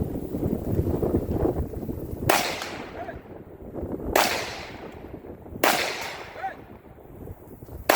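Four rifle shots, spaced about two seconds apart, at distant steel targets. Each shot is followed a moment later by the faint ping of the steel being hit. A low rumble on the microphone fills the first two seconds before the first shot.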